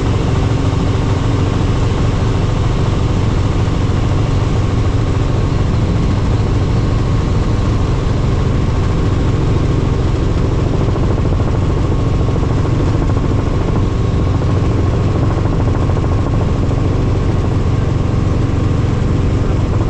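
Helicopter engine and rotor running steadily in flight: a constant loud drone with a dense low beat and a few steady whining tones, unchanging throughout.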